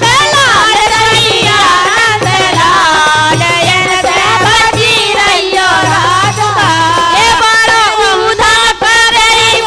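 Women singing a Kartik geet, a Bundelkhandi devotional folk song, into microphones, with steady hand-drum accompaniment.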